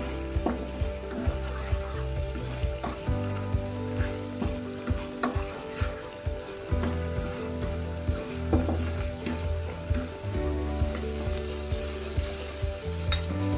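Thick tomato sauce bubbling and sizzling in a non-stick frying pan as a wooden spatula stirs it, with frequent short clicks and scrapes of the spatula against the pan.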